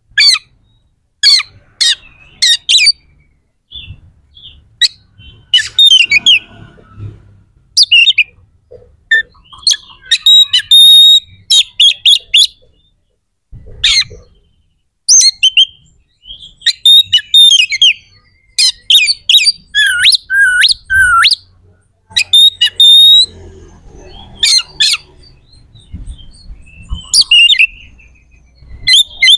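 Oriental magpie-robin in full song, giving loud, rapid phrases of sharp, harsh whistled notes and squawks in bursts with short pauses between them.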